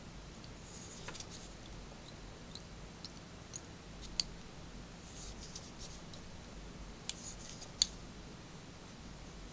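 Fly-tying thread being wrapped from a bobbin and pulled tight over a clump of elk hair on the hook: faint scattered clicks and short crisp rasps. The sharpest clicks come about four seconds in and near the end.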